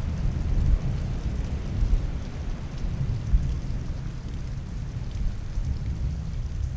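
Wind buffeting the microphone beside the sea: a steady low rumble with irregular gusty bumps, and the wash of surf behind it.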